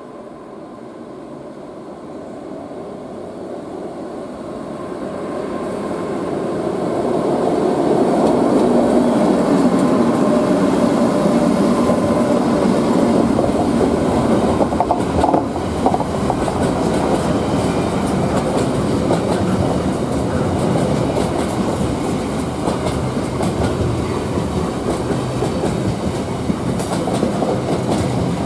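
A pair of Freightliner Class 86 electric locomotives hauling a container freight train past. The sound grows steadily louder for about eight seconds as the train approaches, then the container wagons roll by with a steady, dense rumble of wheels on rail.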